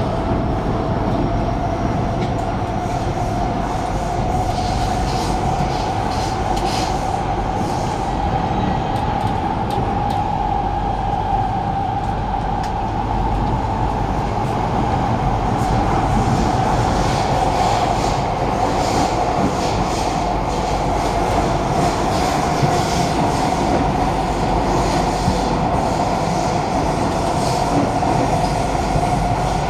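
Kawasaki–CRRC Sifang C151A metro train running at speed, heard from inside the carriage: a steady rumble of wheels on rail with a continuous whining tone that rises a little midway and eases back.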